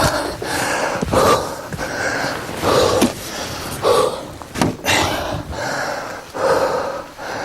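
A large axe chopping a log, sharp strikes into the wood every second or two, with the chopper's heavy breathing between strokes.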